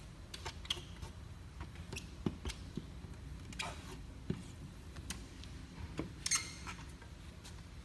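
Rubber squeegee working window tint film onto wet car door glass: faint scattered ticks and a few short squeaks as it rubs across the film.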